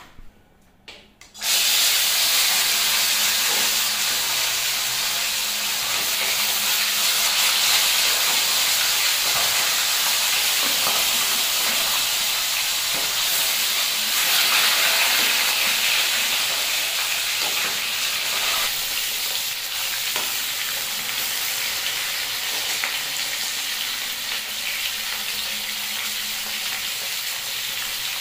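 Pieces of fish frying in hot oil in a steel karahi: a sizzle that starts suddenly about a second and a half in as the fish goes into the oil, then runs on steadily, easing slightly toward the end.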